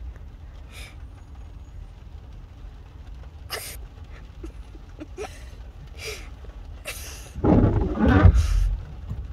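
Iveco side-loader garbage truck's diesel engine running low while its lifting arm empties a kerbside bin. A few short knocks come during the lift, then a loud, rough burst of about a second and a half near the end.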